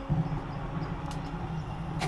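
A low, steady hum that starts suddenly and holds: the starter spinning up a handmade jet engine ahead of ignition. A faint click comes about a second in.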